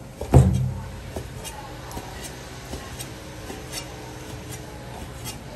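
Chinese cleaver dicing meat on a thick plastic chopping board: one heavy chop about a third of a second in, then a run of light, quick taps of the blade against the board.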